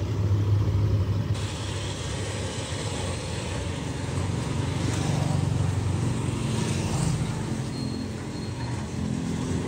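Street traffic: motorbike and truck engines running nearby, giving a steady low engine hum with road rumble.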